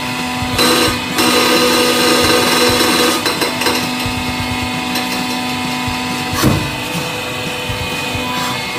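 Hydraulic press running with a steady pump hum while its blade works into a red-hot metal ball, with a few sharp clicks and a brief falling creak about six and a half seconds in.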